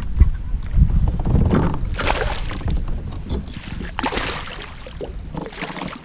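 Water splashing in bursts as a small hooked fish thrashes at the surface beside a kayak and a landing net is dipped in after it.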